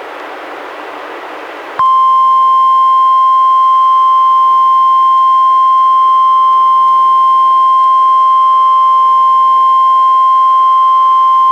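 NOAA Weather Radio warning alarm tone (1050 Hz), played by a Reecom R-1630 weather radio and recorded straight from its output. After a short stretch of radio hiss, one loud steady tone starts about two seconds in and holds for about ten seconds. It comes without the SAME data bursts that normally go before it, so the radio did not get a coded alert for this flood warning.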